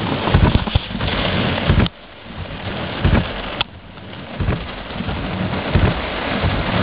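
Heavy thunderstorm rain pouring down, driven by strong wind, with low rumbles coming and going every second or so. The rain noise drops away briefly about two seconds in, then builds back up.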